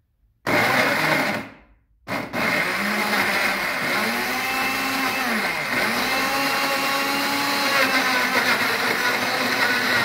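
Philips Walita Duravita blender motor switched on for about a second and off again, then running steadily while it purées halved tomatoes with no added water. Its whine sags and recovers a couple of times as the thick load shifts.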